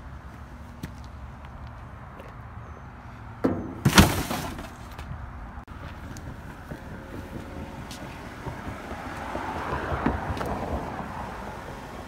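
A loud double bang about four seconds in, likely the lid of a steel dumpster dropping shut, over a low steady rumble. Around ten seconds in, a passing vehicle swells up and fades.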